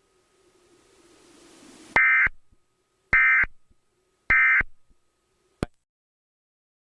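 Emergency Alert System SAME digital data bursts: three short, harsh, buzzy data chirps about a second apart, the End of Message (NNNN) code that closes an EAS alert, followed by a single click. A faint hiss rises just before the first burst.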